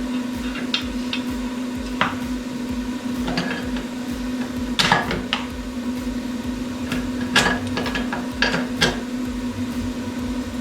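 Scattered metal clinks and knocks from handling tools and parts at the go-kart wheel hub, over a steady low hum.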